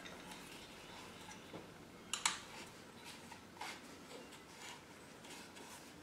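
Faint, scattered metallic clicks of a T-handle wrench and bolts being handled while the aluminum skid plate is bolted up, with one sharper click about two seconds in.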